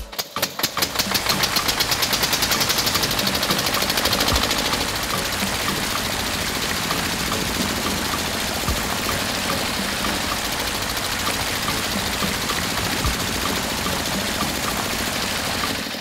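A small motor starting up: its rapid ticks speed up over the first second or two into a steady mechanical run. The run is loudest a few seconds in, then eases slightly and holds steady.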